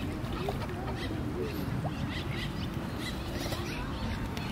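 Domestic ducks making soft, short calls and splashing in shallow water as one bathes, over a steady low rumble.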